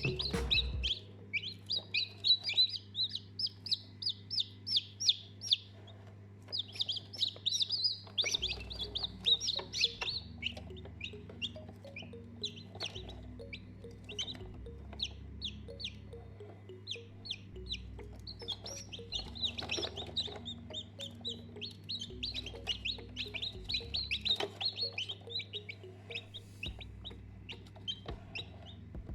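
Baby chicks peeping: many short, high peeps in quick runs that break off briefly now and then.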